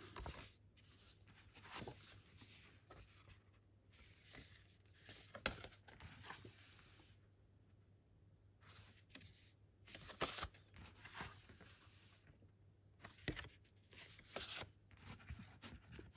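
Faint rustling and rubbing of paper and card being handled, with a few brief sharper rustles spread through.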